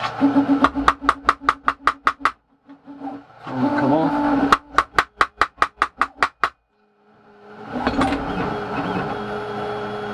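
Hammer tapping a screwdriver used as a drift against the gear on an Erbauer mitre saw's gearbox shaft, trying to drive the gear off: two quick runs of about ten sharp metallic taps each, roughly five a second, with a pause between. The gear stays locked on the shaft.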